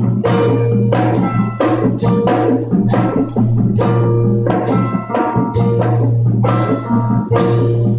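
Marching drumline of snare drums, tenor drums, bass drums and crash cymbals playing a rhythmic passage, with sharp hits about two to three a second that ring with short pitched tones, over a steady low drone.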